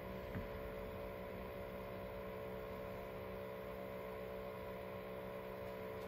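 Brel 25 mm 12 V center tilt-and-lift tubular motor in a Roman shade headrail running steadily as it lowers the shade toward its set lower limit: a low, even hum.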